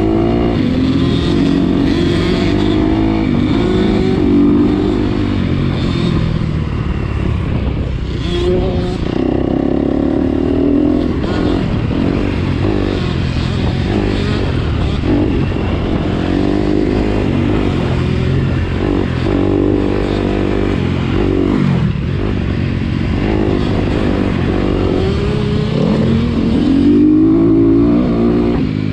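Off-road vehicle engine being ridden hard, its pitch rising and falling again and again as the throttle opens and closes.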